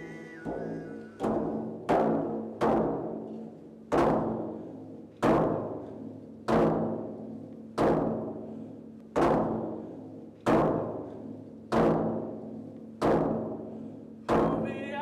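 A drum struck slowly and evenly, about a dozen beats roughly 1.3 seconds apart, each beat ringing out and dying away, over a low steady tone.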